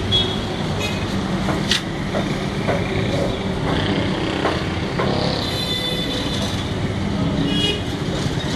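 Steady background rumble of motor traffic, with a low engine-like hum and a few faint clicks.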